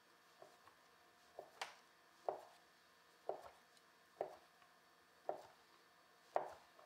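Chef's knife cutting a block of white cheese into cubes, the blade knocking on a wooden cutting board: a series of sharp knocks about one a second, the strongest about two seconds in and near the end.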